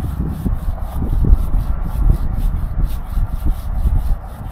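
Irregular low rubbing and rumbling noise against the microphone.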